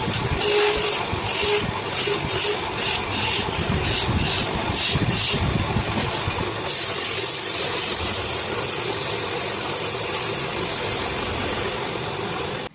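Wood lathe running with a low rumble while a tool works the spinning wood: short hissing strokes for the first few seconds, then one longer continuous hiss until shortly before the end.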